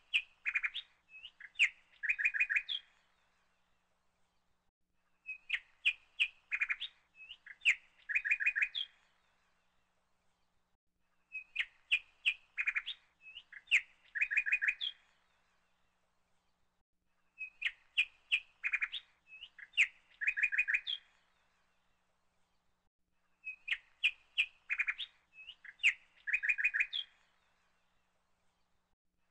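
Bird song: rapid chirps and trills in a short phrase that repeats identically about every six seconds, a looped recording.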